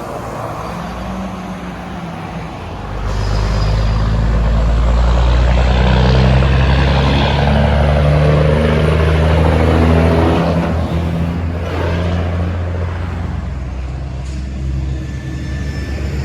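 A heavy truck driving past with its diesel engine running. The engine and road noise swell sharply about three seconds in, stay loud through the middle and fade toward the end.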